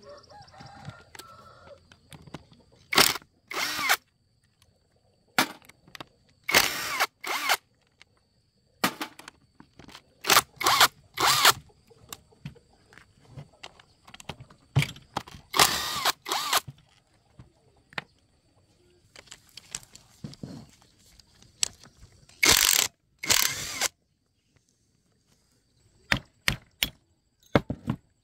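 Cordless impact driver run in short bursts, about a dozen and a half spread across the time with quiet gaps between, undoing the rusted bolts on an old high-pressure pump's housing.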